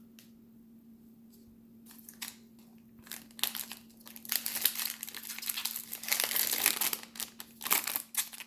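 Foil trading-card pack wrapper being crinkled and torn open. It starts about three seconds in with a few light crackles and becomes a louder, continuous crinkling in the second half.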